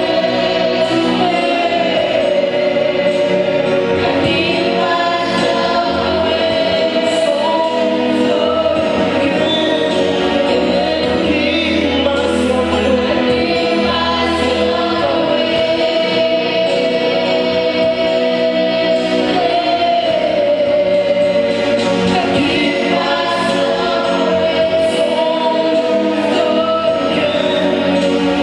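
Choir singing gospel worship music, with long held notes and slow changes of pitch.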